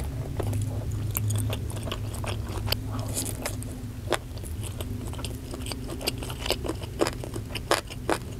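A person chewing a bite of bakso urat, a gristly beef-tendon meatball, with many short, sharp wet mouth clicks.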